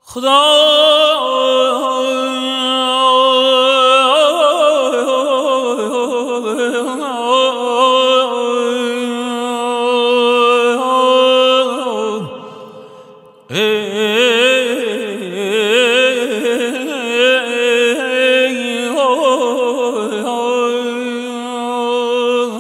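Male voice singing a wordless, ornamented Persian monajat line in dastgah Homayoun: long held notes with quick quivering ornaments. About halfway through the phrase falls away into a short pause, then the singing resumes.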